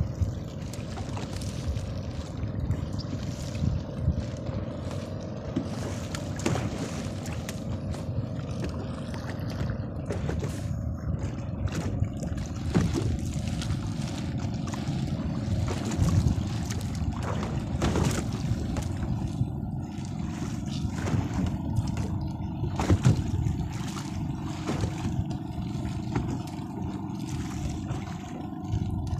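Steady low rumble and faint hum on a small fishing boat at sea, with scattered short knocks and rustles as a fishing net is hauled aboard by hand.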